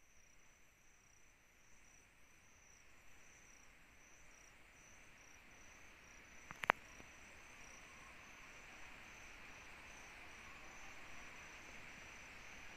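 Night insects such as crickets chirping faintly: a high pulsing chirp repeating a couple of times a second over a steady insect hiss that grows slightly louder in the second half. One sharp click about halfway through.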